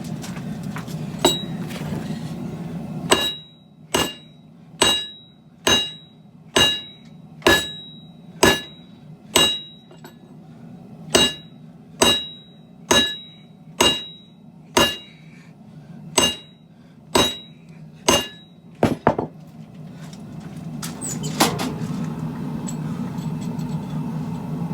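Hammer blows on a hot Damascus steel billet on an anvil: about one blow a second for some sixteen seconds, each with a short metallic ring. A steady low hum runs before and after the hammering.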